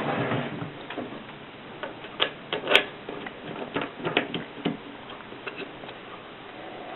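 Antique Mercedes typewriter in use: a short clatter at the start, then irregular sharp key strikes, the loudest about three seconds in, thinning to a few faint clicks after about five seconds.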